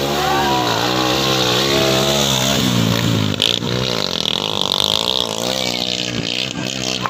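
Motorcycle engines of racing tricycles (motorcycles with sidecars) revving on a muddy track, their pitch rising and falling as the riders work the throttle.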